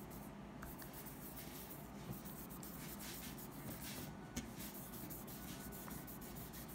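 Faint scratching and rubbing of a lemon-oil bottle's applicator tip being worked along a bare electric guitar fretboard, with small ticks throughout.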